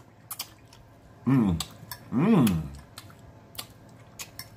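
A man eating: scattered sharp clicks of chewing, lip-smacking and a fork on a plate, with two louder hums of enjoyment, 'mmm', each falling in pitch, about a second and two seconds in.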